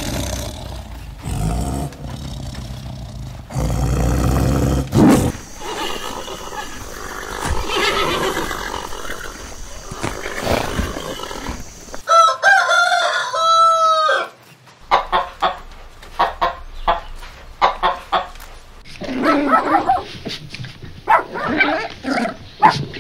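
A run of animal sounds. A tiger's low rumbling growls fill the first few seconds. About twelve seconds in, a rooster crows once, about two seconds long, and short clucks follow. Dogs bark near the end.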